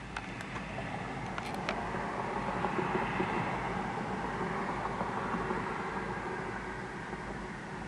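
A car driving past on the road, its tyre and engine noise swelling and then fading over several seconds, with a few light clicks in the first couple of seconds.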